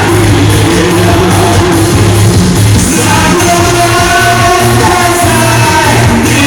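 Loud music with singing over a band backing.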